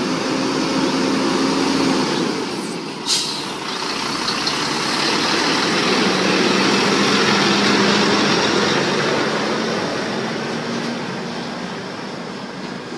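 Diesel engine of a DAF tractor unit hauling two container trailers, running at low revs as the rig crawls past close by; about three seconds in there is one short, sharp hiss of air from its brakes. The sound swells as the trailers go by and eases off near the end.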